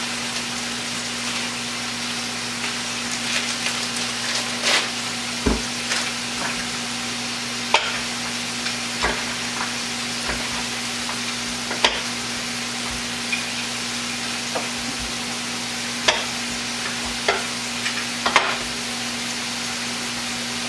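Burger patties sizzling in a frying pan, a steady hiss, with scattered sharp knocks of a knife cutting slices from a block of cheese on a wooden cutting board.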